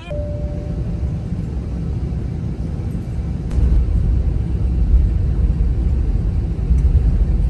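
Low rumble of an airliner's engines and airflow heard from inside the passenger cabin, growing louder about three and a half seconds in.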